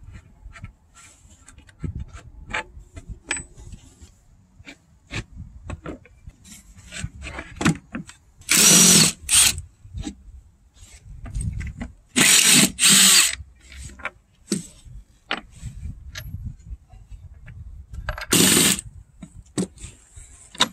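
Cordless impact driver driving screws into a wooden stool frame in four short bursts: one about 9 seconds in, two close together a few seconds later, and one near the end. Scattered light knocks and taps of wooden pieces being handled sound between the bursts.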